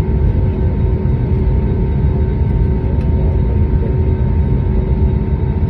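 Cabin noise of a jet airliner rolling down the runway after touchdown: a loud, steady rumble from the wheels and airframe, with the faint steady whine of the turbofan engines running through it.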